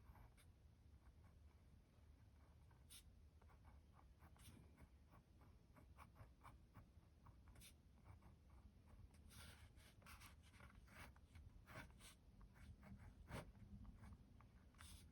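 Faint scratching of a brass Everyman Grafton Mini Twist ballpoint pen writing on paper, in many short, irregular strokes.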